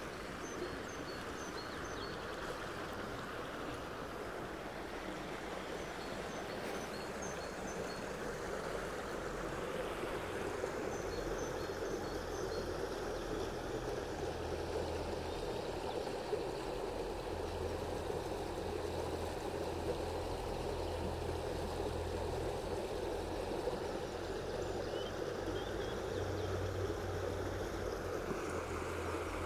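Small rocky stream rushing and babbling steadily over stones and little riffles.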